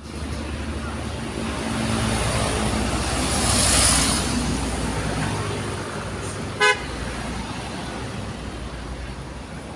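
Road traffic with a vehicle engine running, and one vehicle passing close, loudest about four seconds in. About two-thirds of the way through comes a single short, loud toot of a vehicle horn.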